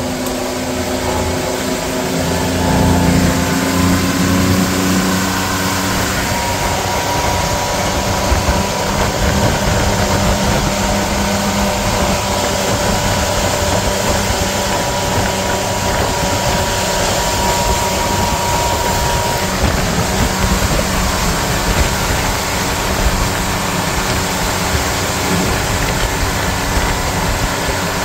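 Motorboat engine running steadily at speed, under a constant rush of wind and water along the hull.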